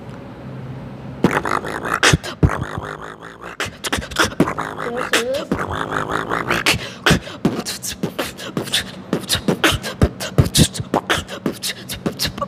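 A boy beatboxing: rapid mouth-drum kicks, snares and clicks start about a second in, with short hummed, gliding vocal tones woven in around the middle.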